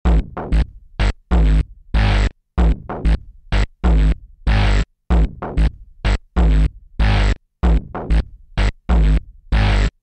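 Electronic background music made of short, loud synth chord stabs with heavy bass, cut off abruptly between hits in a stuttering, syncopated rhythm.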